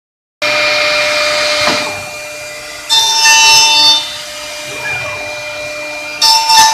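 Cutter spindle of a Woodmaster WM-NC600 CNC dovetail-joint machine machining wood: a steady high whine, growing louder in three cutting passes, about half a second in, around three seconds in and near the end.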